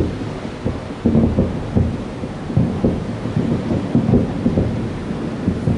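Aerial firework shells bursting in a rapid string of deep booms, several a second, that run together into a thunder-like rumble. The loudest booms come at the start and about a second in.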